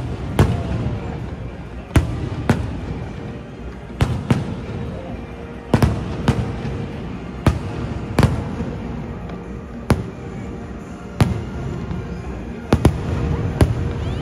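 Aerial firework shells bursting overhead in a series of sharp bangs, roughly one a second, with a continuous rumble between them.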